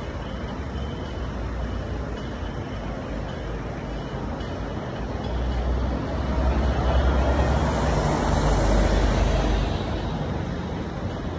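Street traffic noise, with a city bus driving past close by in the middle: its engine and tyre noise swell up over a few seconds, then fade away.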